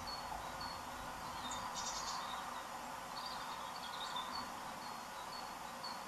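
Small garden songbirds calling faintly: short high notes repeated about twice a second, a brief buzzy call about a second and a half in, and a short twittering phrase around the middle, over a steady background rush.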